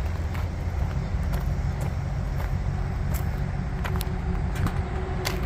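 Dodge Ram pickup engine running steadily at low speed while towing, with scattered sharp clicks and creaks through it.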